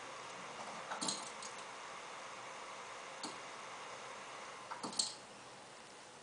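A few sharp clicks over a steady hiss, the loudest about five seconds in; the hiss drops a little after it.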